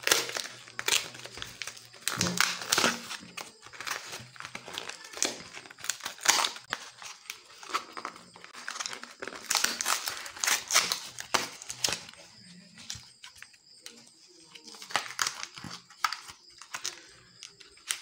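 A plastic courier mailer being torn open by hand and its cardboard box pulled out: irregular crinkling and ripping of plastic and card, coming in bursts.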